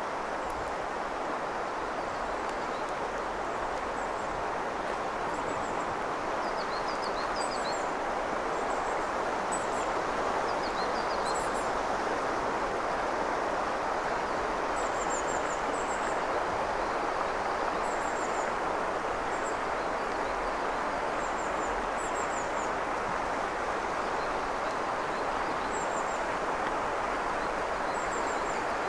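Steady rush of a shallow mountain river flowing over stones, with small birds giving short high chirps every second or two.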